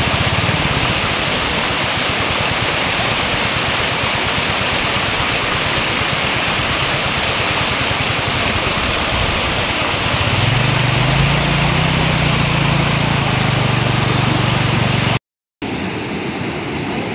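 Floodwater pouring over a road embankment in a loud, steady rush. About ten seconds in a low droning hum joins for several seconds. The sound cuts out for an instant near the end, then the rushing water continues a little quieter.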